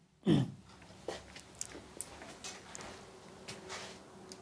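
A man makes one short throat-clearing breath right at the start, then the room goes quiet apart from a few faint scattered clicks.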